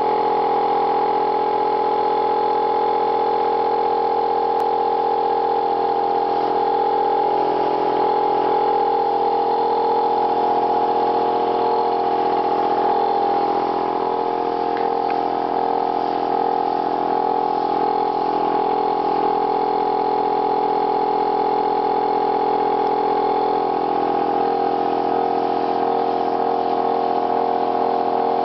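Small airbrush air compressor running with a steady motor hum.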